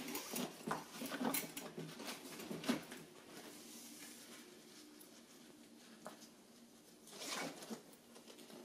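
Faint handling sounds of a crampon's nylon strap being threaded through its metal rings and pulled tight: small clicks and scrapes in the first few seconds, then a short rasp of the strap sliding through about seven seconds in.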